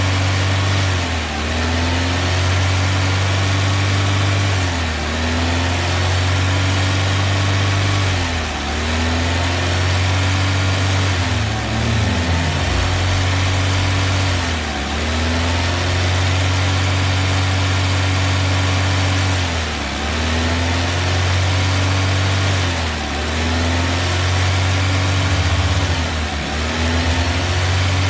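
Car engine running steadily, its pitch dipping sharply and recovering about every two to four seconds as engine-decarbonising spray is fed into its open air intake.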